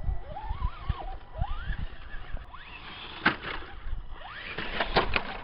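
Electric RC rock crawler's motor whining up in short bursts as the throttle is blipped while it is hung up, with a couple of sharp knocks from the truck against rock. Wind rumbles on the microphone.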